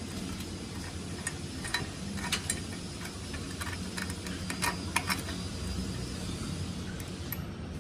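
Irregular sharp metallic clicks and clinks, about a dozen, clustered in the middle, over a steady low hum.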